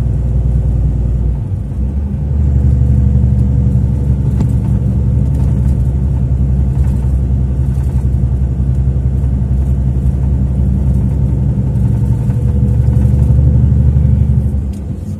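Truck engine running under way, a steady low drone. Its note changes about two seconds in and dips briefly near the end.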